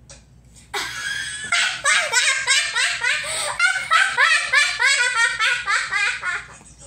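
High-pitched laughter, a long run of quick ha-ha-ha laughs that starts about a second in and goes on for several seconds.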